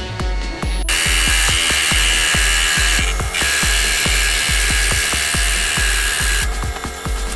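Background music with a steady beat throughout. Over it a power tool runs loudly from about a second in, dips briefly midway and stops near the end.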